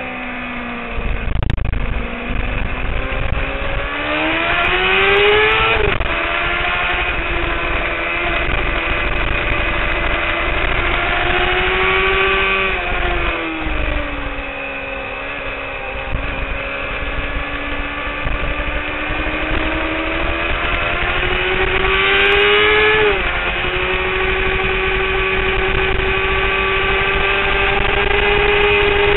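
Honda CBR600RR's inline-four engine at race pace, heard from on the bike. The revs climb, drop sharply at upshifts about six seconds in and again near twenty-three seconds, fall away under braking around thirteen seconds, and hold high near the end. Wind rushes past the microphone underneath.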